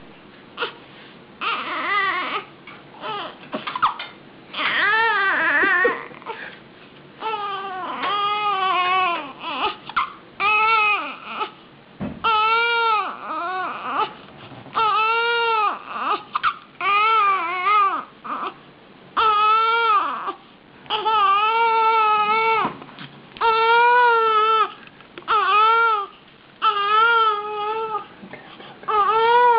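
A baby crying in repeated wails. The wails are irregular at first, then about halfway through they settle into a steady rhythm of roughly one wail every second and a half.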